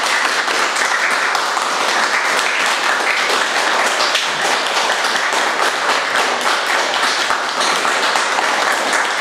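A crowd applauding: many hands clapping steadily.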